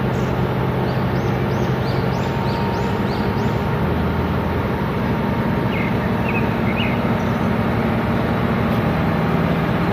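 Mobile crane's diesel engine running steadily at a low drone, its tone shifting slightly about four seconds in. A few short high bird chirps sound over it in the first half.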